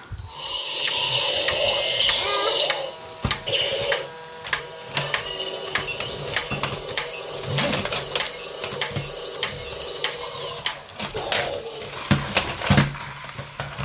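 Battery-powered plastic toy dinosaurs running: a loud electronic sound effect for the first couple of seconds, then a small motor whirring with rapid clicking of plastic gears.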